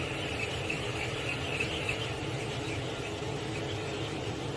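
Wire whisk stirring almond flour into hot milk in a stainless steel saucepan: a continuous squeaky scraping swish that swells and fades with each stroke, over a low steady hum.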